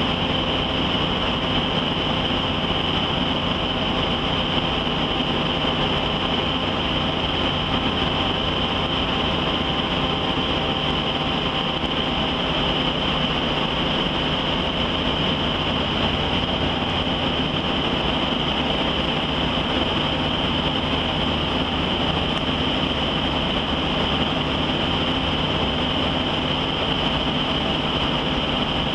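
Offshore survey vessel's engines and machinery droning steadily as it passes close by, a constant high whine over a low hum.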